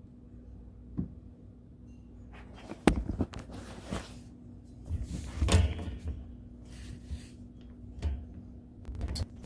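Scattered knocks and clunks of plumbing parts and tools handled inside a sink cabinet while a dishwasher drain hose is fitted, the loudest about five and a half seconds in, over a faint steady hum.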